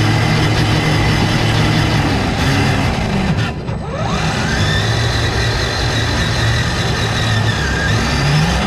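Electric motor and geartrain of an RC scale crawler whining steadily as it drives, heard from a camera mounted on the truck. About three and a half seconds in, the sound dips briefly, then the whine rises again as the truck speeds back up.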